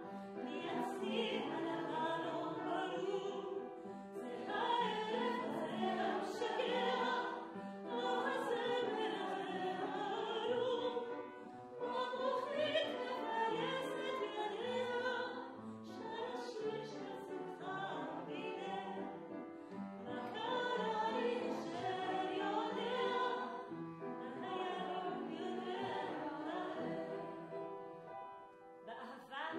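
A woman singing solo with strong vibrato, holding long notes that waver in pitch.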